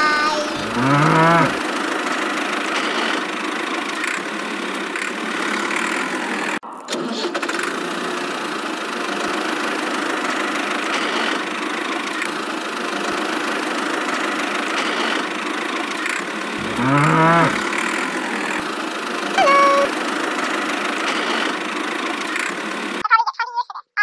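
Steady tractor engine drone, briefly cutting out about six and a half seconds in, with a cow mooing twice, once near the start and again about seventeen seconds in.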